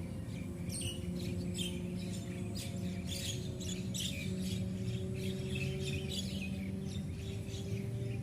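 Birds calling in quick short chirps and squawks, several a second, over a steady low hum.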